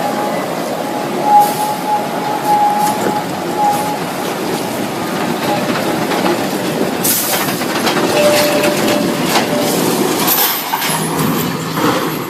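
Heavy machinery rumbling steadily, with a thin metallic squeal during the first few seconds and again about eight seconds in, and scattered clanks.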